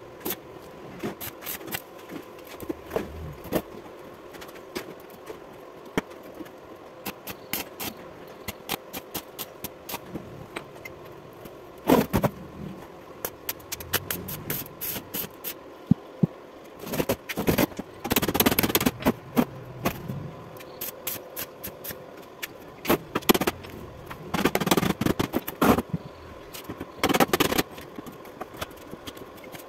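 Stick (MMA) arc welding on the steel frame of a wheelbarrow: the electrode's arc crackles and spits in several runs of one to three seconds, with a steady faint hum underneath.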